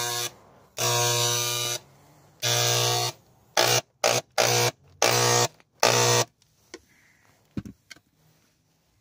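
Handheld Harbor Freight electric sprayer buzzing in trigger bursts as it sprays Fluid Film thinned with vegetable oil. It gives long bursts at first, then several short quick ones, and stops about six seconds in.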